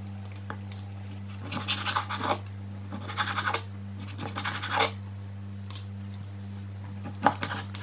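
Chef's knife slicing through raw chicken breast and scraping on a plastic cutting board in several short strokes, over a low steady hum.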